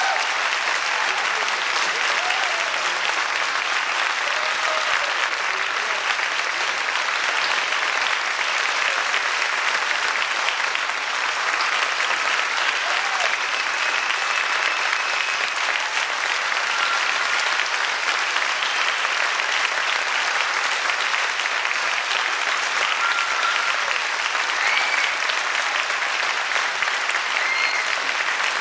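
Audience applauding steadily after a performance, a dense clapping that keeps an even level throughout.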